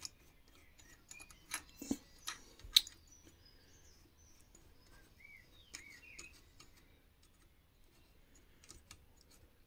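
A few light metallic clicks and taps, four in quick succession in the first three seconds with the last the sharpest. They come from the rocker arm and stud nut being seated and threaded down by hand on a Briggs & Stratton Vanguard V-twin cylinder head, with the pushrod lined up under it; after that, only faint ticks.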